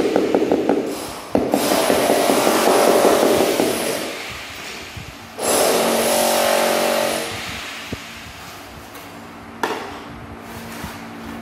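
Ceramic floor tile being tapped down into wet cement mortar with the butt of a hammer handle: a fast run of knocks over the first few seconds. A stretch of scraping on the tile follows, then a single sharp knock near the end.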